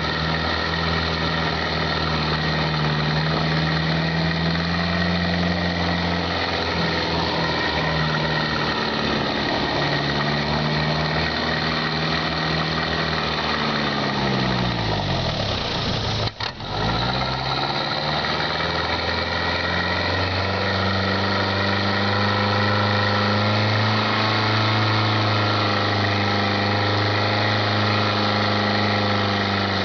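Open safari jeep's engine running while driving, heard from aboard. About halfway through the engine note falls and briefly dips, then it runs steady again and a little louder.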